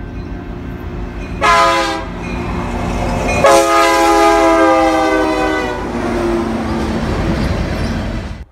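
BNSF diesel freight locomotive approaching with its air horn sounding: a short blast about a second and a half in, then a longer blast of about two and a half seconds, over the steady rumble of the engine and the train rolling on the rails.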